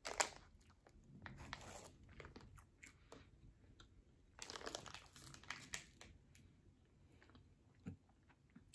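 A plastic candy packet crinkling in the hands in short bursts, with soft chewing of a chewy sour candy belt in between.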